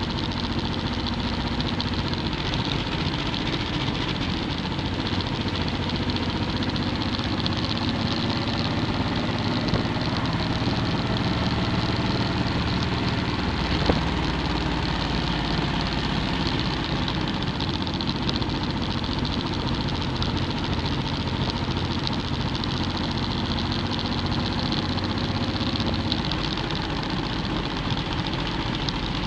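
Motorcycle engine running at road speed, heard from a mount on the moving bike with heavy wind rush over the microphone. The engine note drifts gently up and down, and there is a single sharp click about halfway through.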